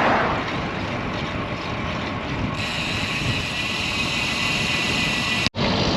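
Wind rushing over a bike-mounted action camera's microphone while riding into a gusty headwind, with a steady high whine joining about halfway through. The sound cuts out for an instant near the end.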